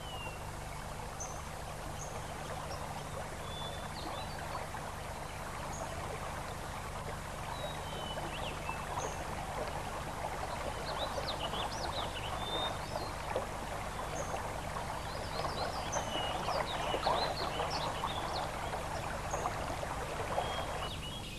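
Running water with short, high bird chirps scattered over it, as a film's outdoor ambience, with a steady low hum beneath.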